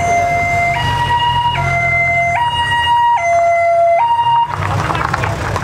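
Two-tone emergency vehicle siren, switching between a high and a low note about every 0.8 s as the vehicle passes close by. The siren cuts off suddenly about four seconds in, leaving the passing vehicle's engine and road noise.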